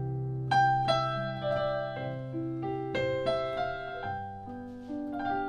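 Digital piano on an electronic keyboard, played as a slow instrumental: a deep bass note held under sustained chords while single melody notes are struck one after another, the chord changing about four seconds in.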